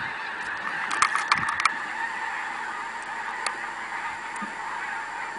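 A large flock of birds calling all at once, making a dense, steady chorus. A few sharp clicks stand out about a second in.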